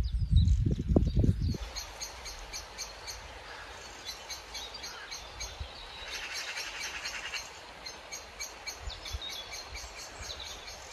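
Wild birds singing: quick high chirping notes repeated over and over, with a dense buzzing trill about six seconds in. A loud low rumble fills the first second and a half, then cuts off abruptly.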